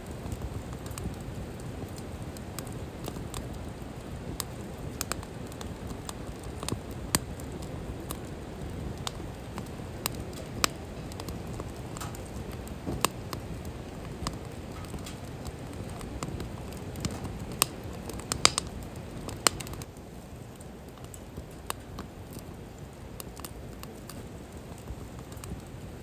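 Wood fire crackling, with irregular sharp pops and snaps over a low steady rush; the rush drops a little about twenty seconds in.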